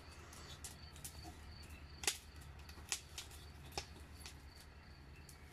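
Quiet crackle of a wood fire burning in a kettle grill, with three sharp pops about a second apart, over a faint, evenly repeated high chirping.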